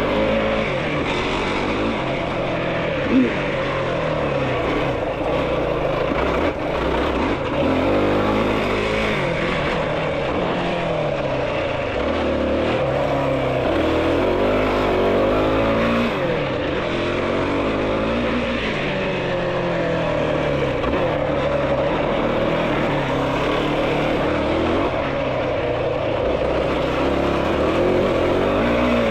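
Yamaha YFZ450R's 450 cc single-cylinder four-stroke engine being ridden hard. The revs rise and drop again and again with throttle and shifts, over a constant rushing noise. There is one sharp knock about three seconds in.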